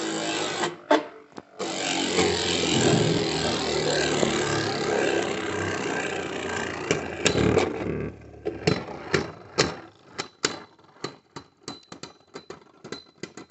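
Two Beyblade Burst spinning tops whirring and scraping around a clear plastic stadium, with a sharp clash about a second in. From about eight seconds in the whirr gives way to a run of sharp clicks and taps that come faster near the end, as the tops knock together and wobble.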